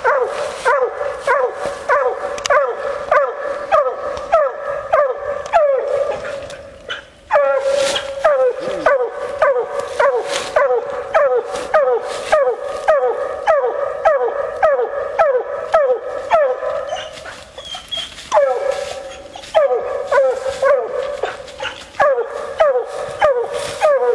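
Bluetick coonhound barking treed at a raccoon in the tree: short, loud chop barks, about two a second, each sliding down in pitch. The barking breaks off briefly twice.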